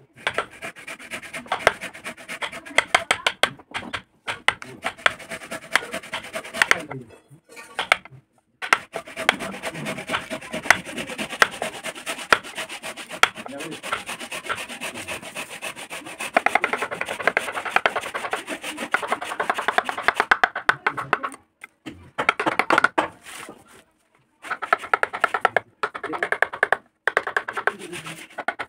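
Carving gouge and chisel pushed by hand through a wooden board, cutting and scraping out chips in quick, closely repeated strokes, with a few short pauses.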